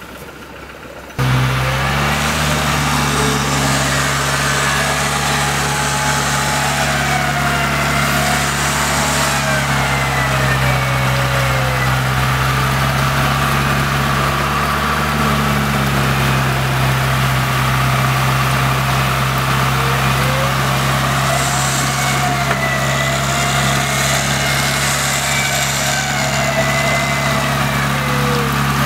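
A 4x4 off-road vehicle's engine running steadily at a low, even speed. It starts abruptly about a second in.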